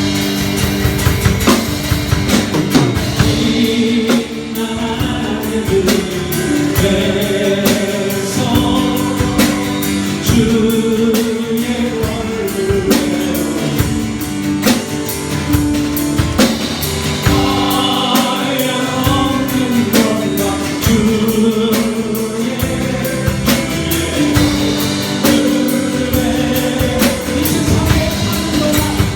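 A church worship team performing a gospel praise song live: voices singing held melody lines over a band with drums.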